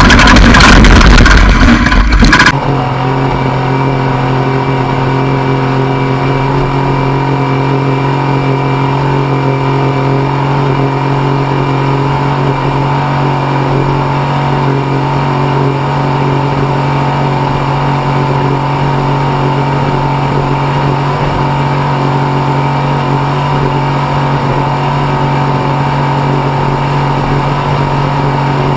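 Off-road race vehicle's engine running at a steady, unchanging pitch. A louder, harsher sound cuts off abruptly about two seconds in.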